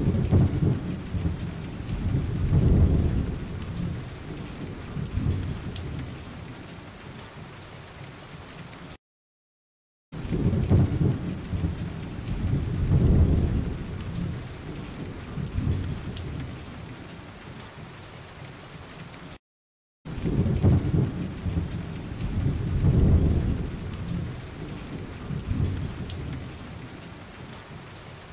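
Steady rain with low rolling rumbles of thunder, loudest in the first few seconds, then easing off to an even rain hiss. The same stretch plays three times over, broken by a short silence about nine seconds in and again about nineteen seconds in.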